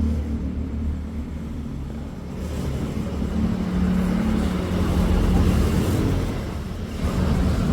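A motor vehicle's engine running: a low steady hum that swells in the middle and eases off near the end.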